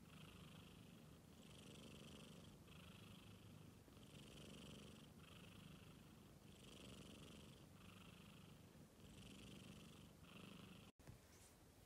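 Domestic cat purring faintly in a steady rhythm, each swell lasting about a second. It cuts off abruptly near the end.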